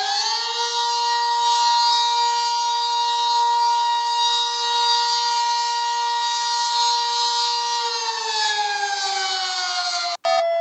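Civil-defence siren wail sounding as an emergency alert: the tone rises, holds steady for about eight seconds, then falls away. It cuts off abruptly just before the end, where a different beeping alert tone starts.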